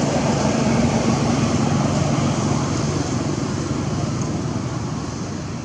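Steady traffic noise with a low engine hum, easing off a little in the second half.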